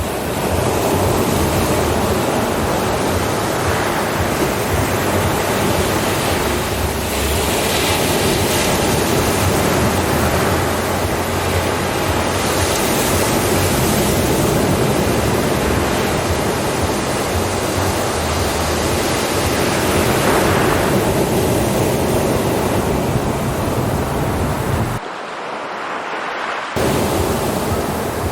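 Ocean surf washing continuously, rising and falling in slow swells. About 25 seconds in it briefly drops quieter and duller for a couple of seconds, then returns.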